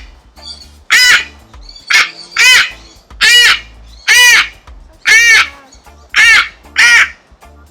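Large parrot screaming over and over, about one harsh squawk a second, each arching up and then down in pitch: the alarm calls of a bird upset at being caught and handled.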